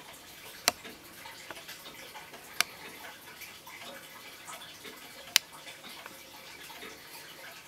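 Three sharp single clicks at uneven gaps, about two and three seconds apart, over faint room noise; no chimes sound.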